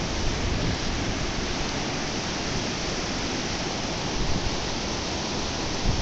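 Steady rush of white water over the rocks of a mountain river below a footbridge, an even hiss with no change.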